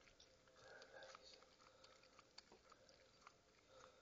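Near silence: faint room hiss with a few soft, scattered clicks.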